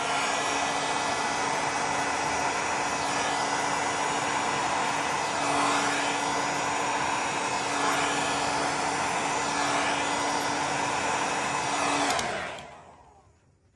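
Heat gun running, a steady rush of blown air over a constant motor hum. About twelve seconds in it is switched off and winds down to silence.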